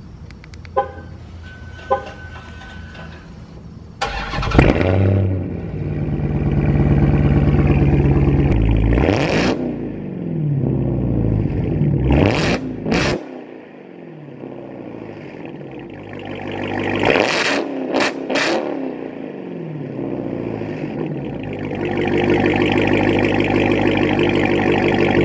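Supercharged 6.2-litre Hemi V8 of a 2018 Dodge Challenger SRT Hellcat Widebody with a mid-muffler delete, through its exhaust: it starts about four seconds in with a loud flare and settles to a steady idle. It is revved in quick blips several times, then held at raised revs near the end.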